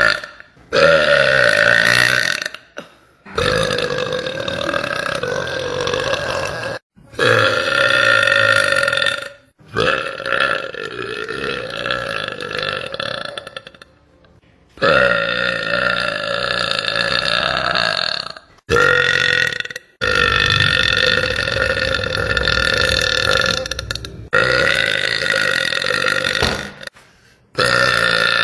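A woman's long, drawn-out burps, about nine in a row, most lasting two to four seconds, with short breaks between them.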